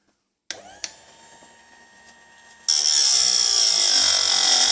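Bench-mounted chainsaw chain sharpener switched on with a click about half a second in, its electric motor spinning the grinding wheel up to a steady whine. Just under three seconds in, the wheel bites into a chain tooth with a much louder, high-pitched grinding that holds.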